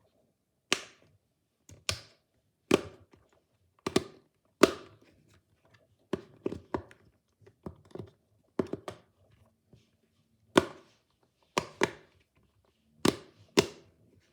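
Small fidget-toy balls being bounced or knocked on a hard surface: sharp thuds about once a second, some in quick pairs, each dying away quickly.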